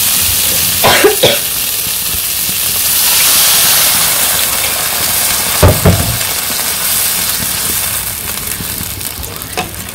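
Vegetables sizzling in a hot non-stick wok as water is poured in, with a rush of hissing, to start the curry's gravy after the frying stage. A metal spatula knocks against the pan about a second in and again near six seconds as it stirs, and the sizzling eases near the end.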